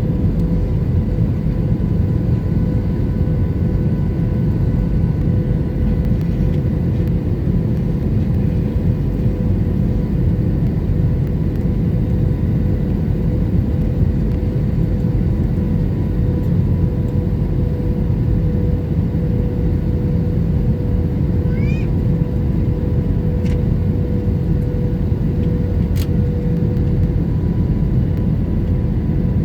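Airbus A321 cabin noise: a steady deep rumble of the engines and air rushing past the fuselage, with a steady hum running through it.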